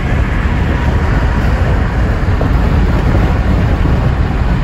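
Steady road noise inside a moving car's cabin while driving on a freeway.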